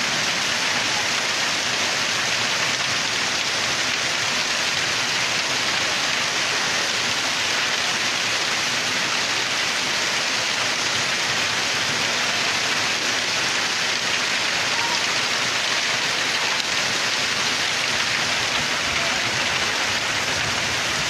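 Heavy rain falling steadily, an even hiss of many drops that neither builds nor eases.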